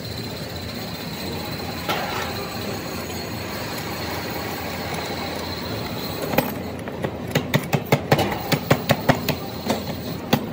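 Steady workshop machinery noise with a faint high whine; from about six and a half seconds in, a run of sharp metal clicks, several a second, as a wrench works a bolt at the base of a cast-iron donkey water pump.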